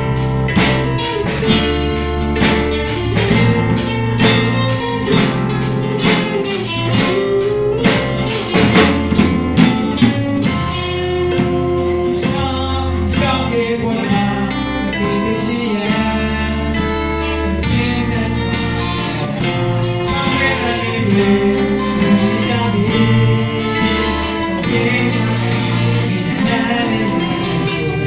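Live band music: a solo singer with a microphone over drum kit, electric bass and keyboard. An even ticking beat runs through the first third, and the singing stands out more later on.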